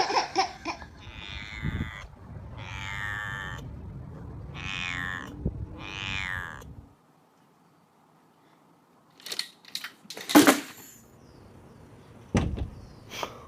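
A cat giving three drawn-out, odd-sounding meows, each about a second long and bending down in pitch. After a short quiet gap come a few clicks and a loud sudden thump.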